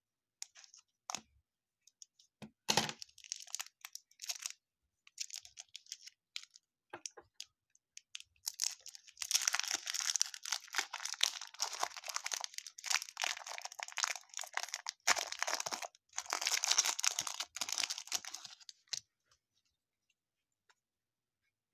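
Wrapper of a baseball card pack crinkling and tearing as it is opened: scattered crackles and clicks at first, then about ten seconds of steady crinkling with a short break partway through, stopping a couple of seconds before the end.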